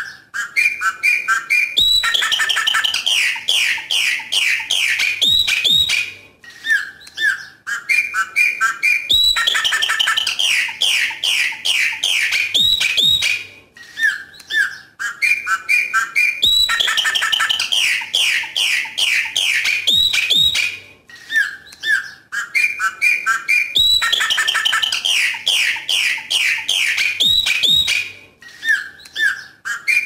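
Chopi blackbird (pássaro preto) singing its "coqui coqui" song: a few short clear notes, then a fast run of bright, chattering whistled notes lasting several seconds. The same phrase repeats about every seven seconds.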